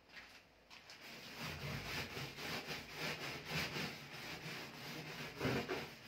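Hand scrubbing the stainless-steel side panel of a gas cooker: uneven back-and-forth rubbing strokes against the metal, starting about a second in.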